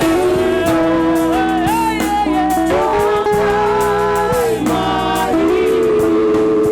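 Gospel music: singing voices over a band with steady bass and regular beats.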